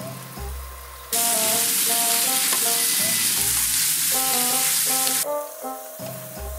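Marinated pork slices sizzling loudly in a frying pan as they are turned with chopsticks. The sizzle starts suddenly about a second in and cuts off abruptly about four seconds later, with background music.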